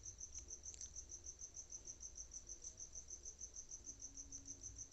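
A cricket chirping faintly in a steady fast pulse, about eight chirps a second, over a low rumble.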